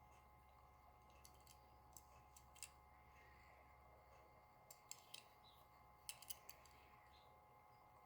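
Near silence with a steady faint hum, broken by a few faint, small, sharp clicks in three short clusters: about a second in, around the middle, and again near six seconds. They sound like a small object being handled.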